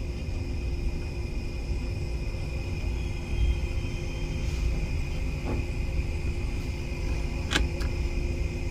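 Steady low background rumble and hum with faint steady tones, broken by one sharp click about seven and a half seconds in.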